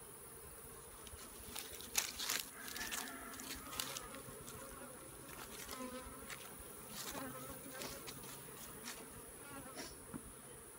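Honeybees buzzing steadily around an open hive being worked. A few sharp clicks and knocks break in, the loudest about two seconds in.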